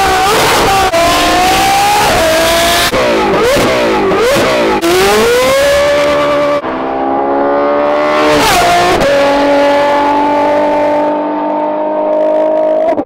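Ferrari F12 and 458 Italia engines through Kline Innovation aftermarket exhausts, loud, revving and accelerating hard in a series of abrupt cuts, the pitch climbing and falling sharply between shifts. In the last few seconds one engine holds a steady, slowly rising note.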